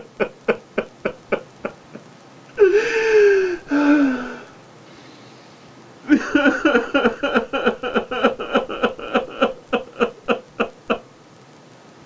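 A man sobbing in grief, with rapid, heaving sob-breaths at about four or five a second. About three seconds in they break into a long wail that falls in pitch, then after a short pause the sobbing starts again.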